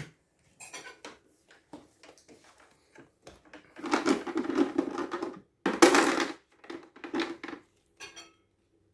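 Handling noise: scattered clicks and knocks, then two longer crunching rattles about four and six seconds in, and a few last clicks near the end.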